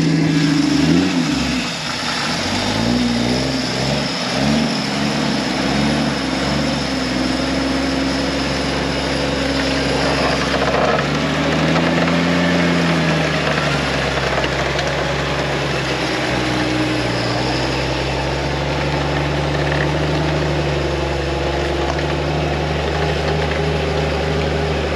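Engine of a lifted Jeep Cherokee XJ on mud tyres, revved up and down as it works through deep mud. It blips quickly several times early on, swells in one longer rev and eases off about halfway through, then settles into a steady drone.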